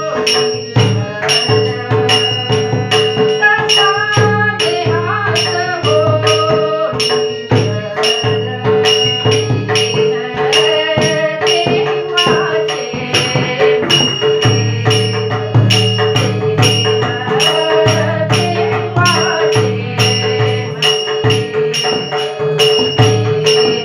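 Marathi devotional abhang: a woman sings a melody over a harmonium's held tones. A two-headed barrel drum (mridang) plays low strokes, and small hand cymbals (taal) ring a steady beat at about two strikes a second.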